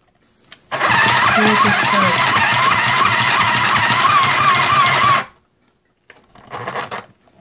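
Easy Home mini sewing machine's small electric motor running for about four seconds as the needle stitches through paper, a wavering whine over a fast needle clatter, cutting off suddenly. A short scratchy burst follows near the end.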